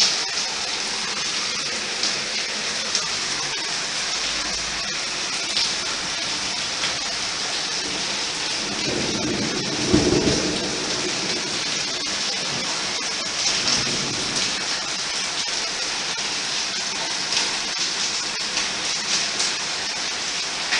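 Rain falling steadily as a dense hiss, with a low rumble of thunder about nine seconds in that is the loudest moment.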